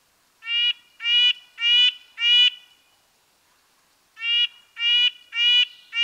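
Red-breasted nuthatch giving its nasal call notes: a run of four short, evenly spaced notes at about two a second, a pause of about a second and a half, then another run of the same notes.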